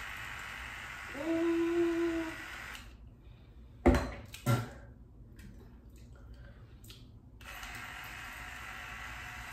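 Handheld water flosser, filled with mouthwash, running with a steady hissing spray, plus a short low hum about a second in. The flosser stops about three seconds in. Two short loud spits into the sink follow, and the flosser starts again near the end.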